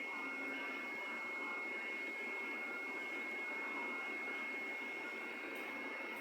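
TIG welding arc on a stainless steel pipe joint: a steady hiss with a constant high-pitched whine.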